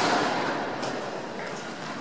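Tennis ball struck with a racket right at the start, ringing out in a large indoor hall's echo, then a lighter knock of the ball bouncing on the hard court a little under a second later.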